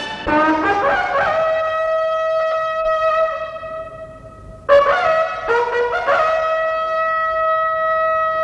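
Military bugle call sounded by a row of ceremonial guards: two phrases, each climbing through a few notes to a long held note. The first fades away, and the second comes in suddenly about 4.7 seconds in.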